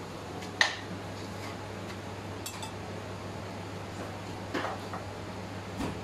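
Kitchen clatter: one sharp metallic clink a little over half a second in, then a few lighter clinks and soft knocks of pans and utensils on stainless steel, over a steady low hum.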